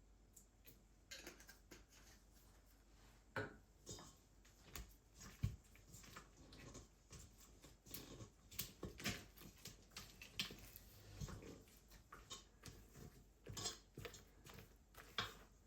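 Scattered light clicks, taps and knocks of small objects being handled, irregular and faint, with one sharper knock about five seconds in.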